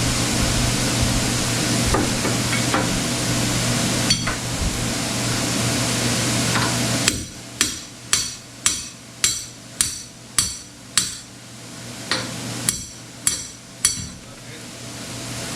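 A steady hiss for the first seven seconds, then about eleven hammer blows on metal, roughly two a second with a short pause, each ringing briefly.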